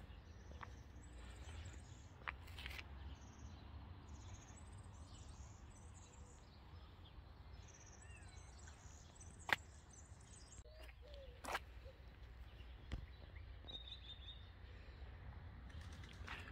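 Faint outdoor ambience: small birds chirping in the distance over a low steady rumble, with a few sharp clicks, the loudest about halfway through, and a brief high whistle later on.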